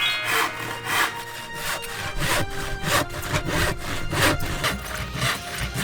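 Handsaw cutting through wood in steady back-and-forth strokes, about three a second.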